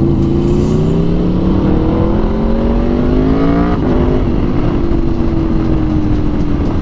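Aprilia RSV4 1100 Factory's V4 engine through an SC Project SC1-R exhaust, heard from the rider's seat. The note climbs steadily for about three and a half seconds, drops sharply with a shift, then holds a steady, slowly falling note.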